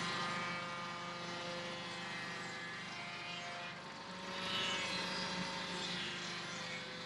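Swing blade sawmill's engine running steadily under load as the blade cuts, growing louder with a harsher, higher hiss about four seconds in.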